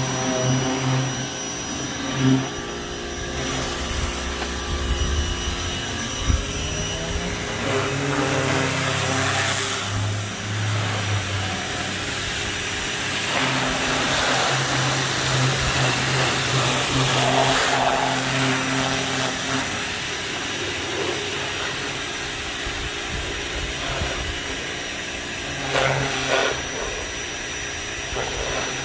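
Ryobi 1600 PSI electric pressure washer running, its motor and pump humming steadily while the water jet sprays against a car's body panels.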